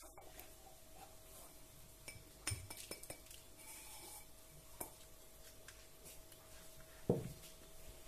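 A few light clinks and knocks of kitchenware handled on a hard surface, the loudest near the end, over a faint steady hum.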